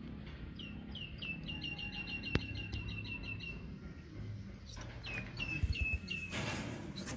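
A small bird calling in quick runs of short, repeated falling chirps, about four or five a second: one run of about three seconds, then a shorter run of five or six notes. A sharp click and a brief rustle are also heard.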